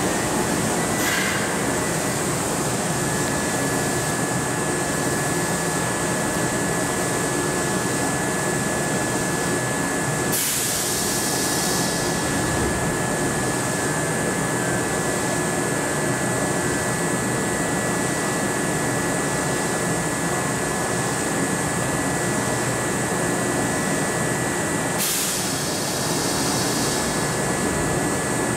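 A Kintetsu 7000 series electric train standing at an underground platform, its on-board equipment running with a steady hum and a thin, steady high whine. Two short hisses come about ten seconds in and near the end.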